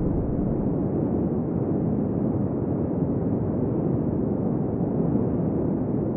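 Steady, dull rumbling noise with no treble, even throughout.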